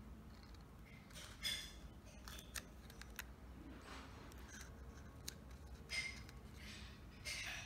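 Stiff plastic bottle petals clicking and crinkling as they are handled and pressed into place on a plastic flower: a few short, scratchy sounds.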